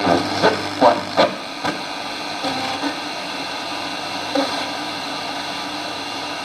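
Sony radio-cassette player's speaker giving a few short clicks in the first two seconds, then a steady hiss of radio static.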